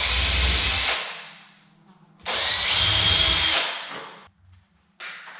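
Power drill boring two small pilot holes for the latch faceplate screws in the wooden door edge: two short runs of about a second each, each dying away as the trigger is let go. A sharp click comes near the end.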